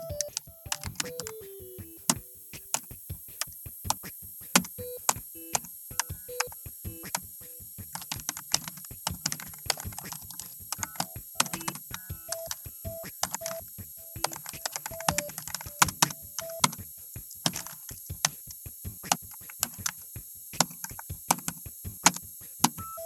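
Typing on a computer keyboard: rapid, irregular key clicks, with short beeping tones that step up and down in pitch between them.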